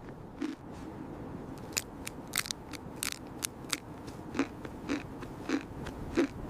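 A person chewing crunchy food close to the microphone, in steady chews a little under two a second. There is a run of sharper, crisper crunches in the middle.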